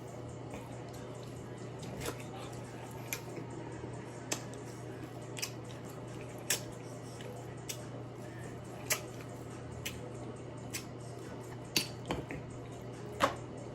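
Seafood boil being eaten by hand: sharp, irregular clicks and snaps of crab shells being cracked and picked, with wet mouth sounds, roughly once a second over a low steady hum.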